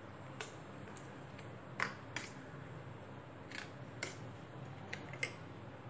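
Metal spoon clinking against a stainless steel bowl while beating eggs into a chopped onion mixture: about eight light, irregular taps.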